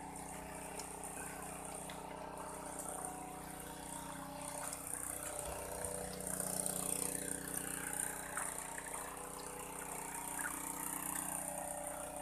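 A motor-driven water pump running steadily as it pumps the pool dry, a constant hum with a few faint splashes and squelches of hands working in wet mud.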